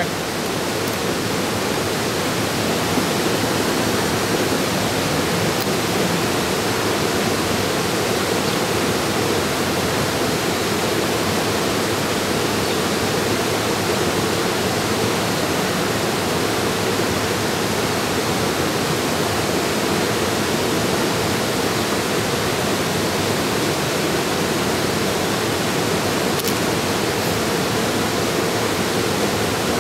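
Steady rush of water from a small creek cascade pouring over low rock ledges.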